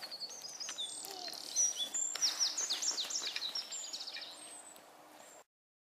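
Woodland songbirds singing, high chirps and whistles with a rapid series of falling notes about two seconds in. The sound cuts off suddenly near the end.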